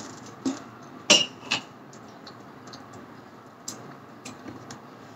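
Knife and fork clinking and tapping against a plate, a few sharp clicks about a second in and fainter ones later.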